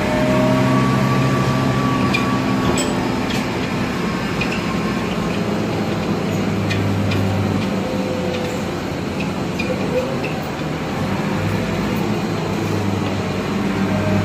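2002 Nova Bus LFS diesel city bus running in service, a low steady engine drone whose note shifts a couple of times, about six and eleven seconds in, with scattered light clicks and rattles.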